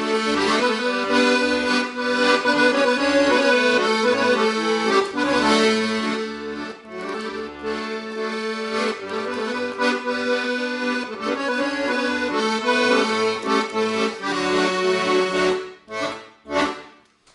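Paolo Soprani piano accordion playing a ranchera melody with chords over regular bass-button notes, closing with two short final chords and then stopping.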